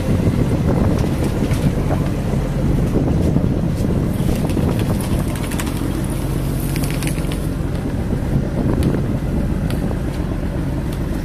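A fishing boat's engine running steadily with a low hum, with scattered light clicks and taps as the gill net is hauled aboard.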